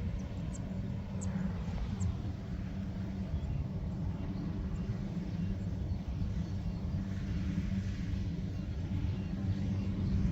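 Engine of a heavy earth-moving machine running steadily, a continuous low drone with no change in pitch.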